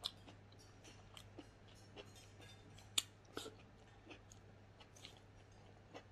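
A person chewing a mouthful of food with scattered small wet clicks and smacks, the sharpest about three seconds in.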